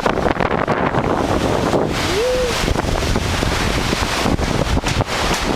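Strong hurricane wind buffeting the microphone: a dense, steady rush with gusty rumble. A brief arched tone sounds about two seconds in.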